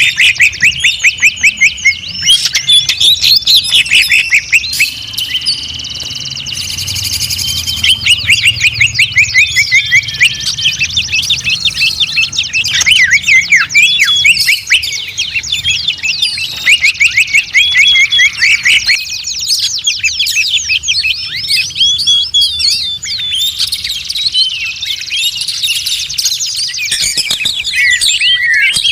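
Songbirds singing: a dense, loud run of rapid chirps, trills and whistled notes that starts with fast repeated notes, several a second.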